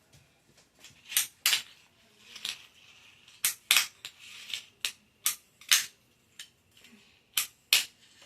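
Fingerboard with bearing wheels doing tricks: sharp wooden clacks as the deck pops off its tail and lands, mostly in pairs about a third of a second apart, with the wheels rolling between them.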